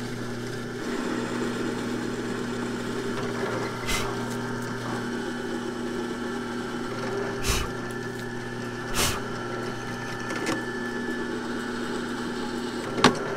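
Drill press running steadily as its bit cuts through the steel fasteners holding the kickstart gear onto a motorcycle clutch basket. A few sharp clicks stand out over the steady hum.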